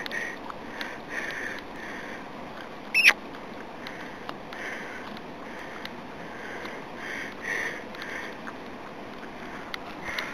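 A dog eating grass: short, irregular chewing and sniffing sounds, with one loud, brief high squeak about three seconds in.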